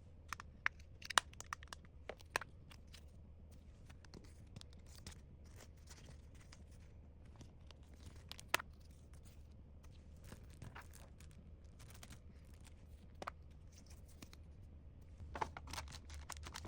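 Packaging being handled and torn open: faint, scattered crinkles and tears with a few sharper clicks, busiest in the first couple of seconds and again near the end, over a steady low hum.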